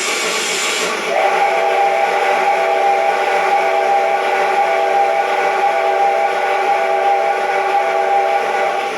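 KATO 22-101 sound box playing a recorded steam locomotive: a second of steam hiss, then one long chord steam whistle blast of several tones, held steady for about eight seconds before cutting off.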